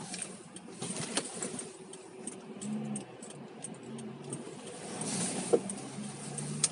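Feral pigeon cooing in short, low, repeated notes through the second half, over a steady hiss and light ticking clicks.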